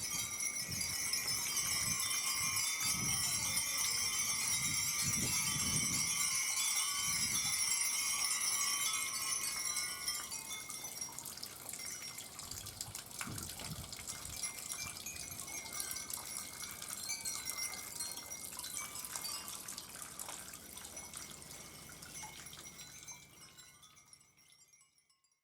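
Japanese wind bells (fūrin) tinkling in a dense shower of high ringing tones, thinning out after about ten seconds and fading away to nothing near the end. A few soft low thumps sound in the first seven seconds.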